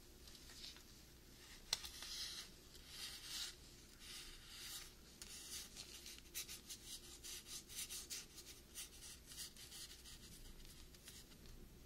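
Gloved fingertips rubbing and scratching against a frosted paper ice-cream pint as it is turned in the hands: faint, irregular soft swishes, with a sharp tick about a second and a half in and quicker short strokes in the second half.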